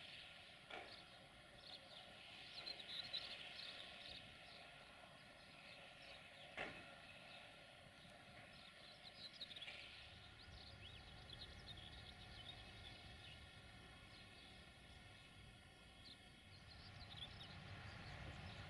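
Faint open-field ambience: small birds chirping quietly, with two short clicks. A low rumble comes in about halfway and slowly grows louder.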